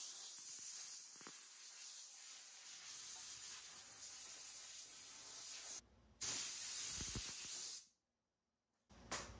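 Compressed-air blow gun hissing steadily as it blows scuffing dust off a sealer-primed sheet-metal panel. The air cuts off for a moment a little past halfway, then stops near the end.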